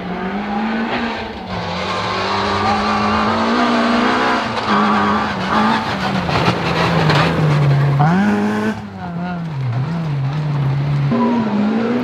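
Rally car engine revving hard as it drives a stage, its pitch climbing and falling with throttle and gear changes, including a quick climb in revs about eight seconds in.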